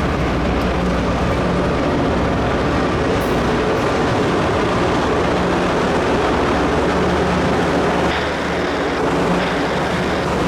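Rail grinder train passing: a loud, steady, harsh noise over the low, even drone of its diesel engines, easing slightly about eight seconds in.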